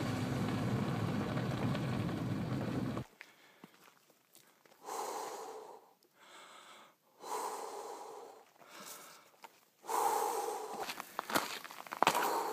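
A steady low rushing noise that cuts off abruptly about three seconds in, then a person breathing hard in single breaths a couple of seconds apart while walking a trail. Footsteps crunch on dirt and gravel near the end.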